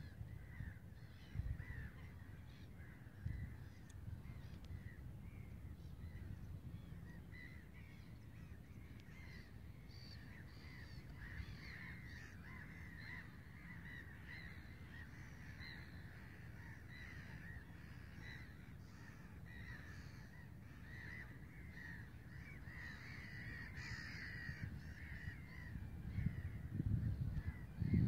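A flock of birds calling continuously in short, rapidly repeated calls, over a low rumble of wind on the microphone, with a few handling bumps near the end.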